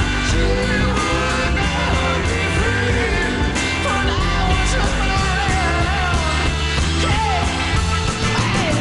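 A 1960s rock record playing: a singer's voice over a full band with heavy bass and drums.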